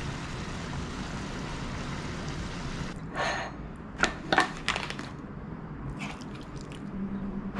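Sauce being handled in the kitchen: a steady hiss for about three seconds, then a series of clinks and wet squelches, as of thick sauce being scooped or poured from a jar.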